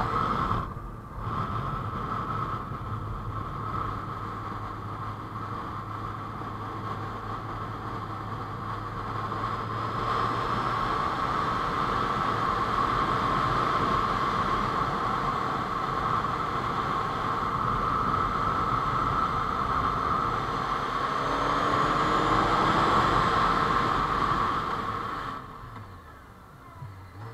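Honda CBR600 F4i's inline-four engine running under way with steady wind rush; the revs climb in a rising whine about two-thirds of the way in, then the throttle closes and the sound drops away near the end.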